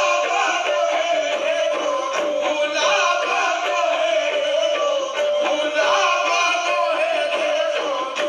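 Music: a man singing a devotional song over instrumental backing, with a steady held tone underneath.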